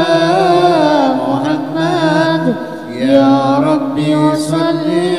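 A male solo voice sings a long, drawn-out melismatic line of Arabic sholawat, the pitch winding up and down, over sustained electronic keyboard notes. There is a short break about two and a half seconds in.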